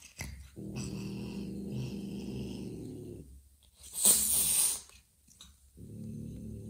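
A mother cat growling long and low, one sharp hiss about four seconds in, then growling again near the end. This is her defensive warning at an unfamiliar kitten that smells foreign to her.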